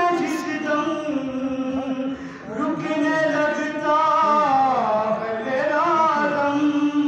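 A young man's solo voice chanting an Urdu noha, a mourning lament, without instruments, in long held lines that waver in pitch, with short breaks between phrases.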